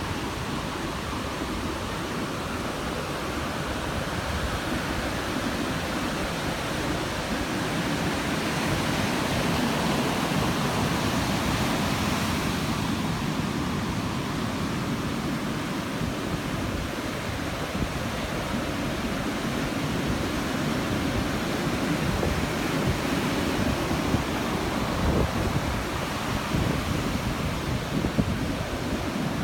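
Ocean surf washing onto a beach, with wind buffeting the microphone; the wash swells and eases slowly over several seconds.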